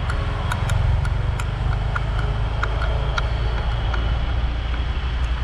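Wind rushing over the microphone of a moving motorcycle at low speed, a heavy steady rumble with the small engine running underneath. Scattered light clicks come through every so often.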